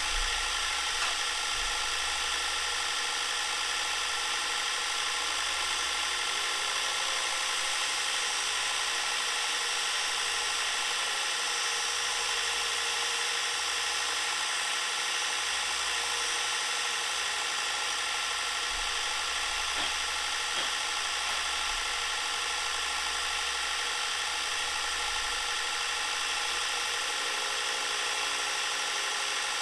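Bucktool bench grinder running steadily, its motor humming under a constant tone, while a wedge is ground against its wheel.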